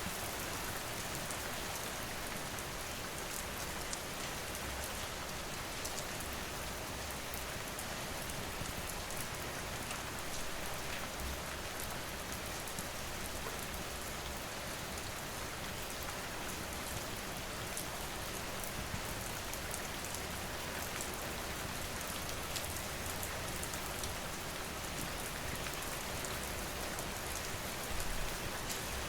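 Steady rain falling, with fine scattered ticks and crackles of a wood fire mixed in. A short low thud sounds near the end.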